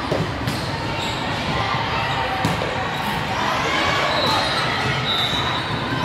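Volleyball being struck and bouncing in a gym hall, several sharp thuds over a steady murmur of spectators talking.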